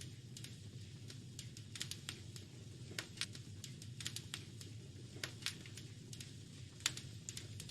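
Wood fire crackling in a fireplace: irregular sharp pops and snaps over a steady low rumble, with one louder pop near the end.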